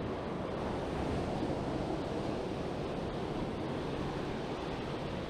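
Small surf waves breaking and washing up over the sand in a steady wash.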